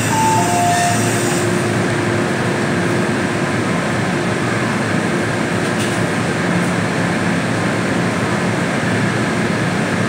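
Door-closing chime inside an MTR M-train car: a high-then-low pair of beeps in the first second. Then the stopped car's steady hum, with a faint steady tone for a few seconds.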